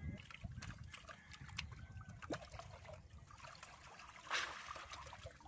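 Hands sloshing and splashing in shallow muddy water while groping for fish and shrimp, with small clicks and trickles and one louder splash about four seconds in.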